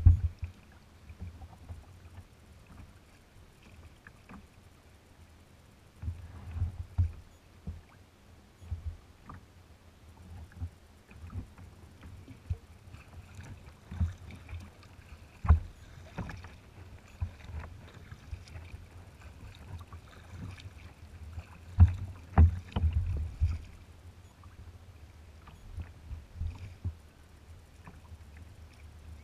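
Water lapping and slapping against a kayak's hull close to the camera, with irregular knocks and low thumps, clustered about six seconds in and again around twenty-two seconds in.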